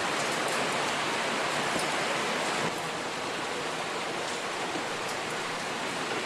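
Steady rain falling, a continuous even hiss. It drops a little in level a little under three seconds in.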